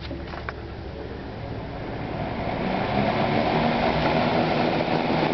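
A click, then the Lakewood motor of a 1964 Lakewood Country Aire 14-inch box fan hums as the blades spin up. The rush of air grows louder over about three seconds and then holds steady.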